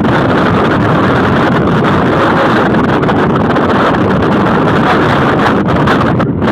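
Loud, steady rushing wind.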